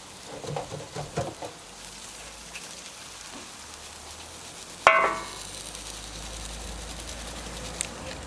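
Burgers, buns and onions sizzling steadily on a Simogas gas plancha's ground-steel griddle, with a few soft taps in the first second or so. About five seconds in comes one sharp, loud knock with a brief ring as a terracotta bowl is set down on the plancha's steel edge.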